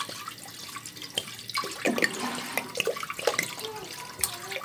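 Milk pouring in a steady stream into a cooking pot half full of milk, splashing, with a few short gurgles about two to three and a half seconds in.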